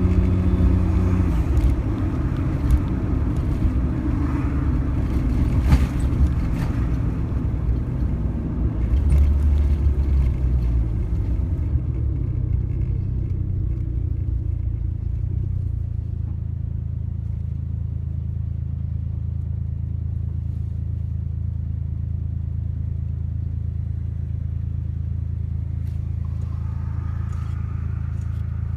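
Suzuki Jimny running, its engine note shifting up and down with a few knocks over the first half, then settling into a steady low hum.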